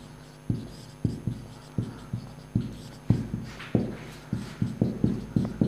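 Felt-tip marker writing on a whiteboard: a quick run of short taps and scratchy strokes, about three a second.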